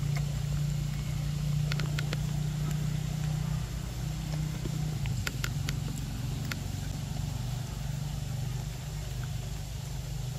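A steady low mechanical hum, like an engine running, with a few faint sharp clicks about two seconds in and again around five to six seconds in.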